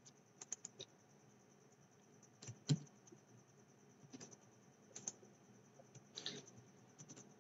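Faint, scattered clicks of a computer mouse and keyboard, a dozen or so spread unevenly with the loudest about two and a half seconds in, over a faint steady high whine.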